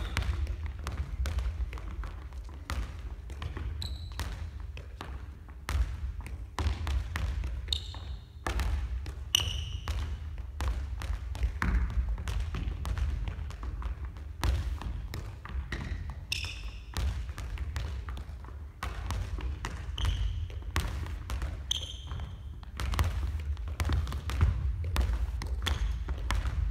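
A small ball bouncing on a wooden gym floor and being tapped up by the feet: irregular knocks and taps, one after another, in bounce juggling.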